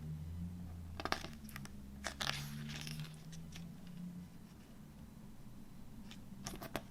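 Handling a CD and its packaging: a cluster of sharp clicks about a second in, a rustling, crinkling scrape around two to three seconds in, and more clicks near the end, over a steady low hum.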